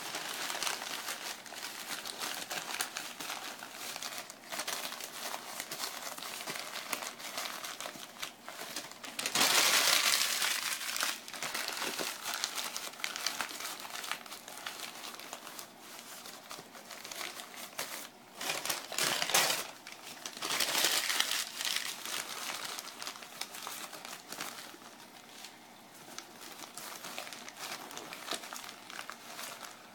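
Crumpled newspaper being stuffed and pressed down by hand into a foam-lined shipping box: continuous crinkling and rustling, louder about ten seconds in and again around twenty seconds.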